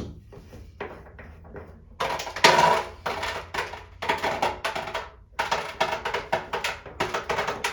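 Old, broken shower-head fitting being worked off the metal shower arm: a few light clicks, then from about two seconds in, four stretches of grating noise as the threaded part is turned.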